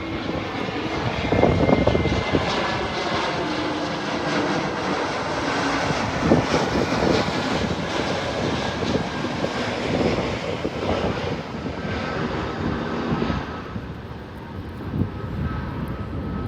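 Airliner engines on an arriving plane, a loud steady rumble and whine with tones that slowly bend in pitch as it passes, easing off near the end.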